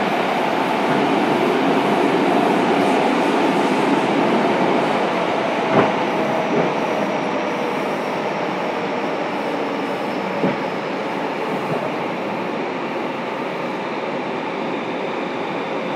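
A Fukuoka City Subway 2000-series car, with a Hitachi GTO inverter, running in a tunnel: a steady rumble of wheels on rail, with a few sharp knocks from the track near the middle and a faint high whine drifting slowly down.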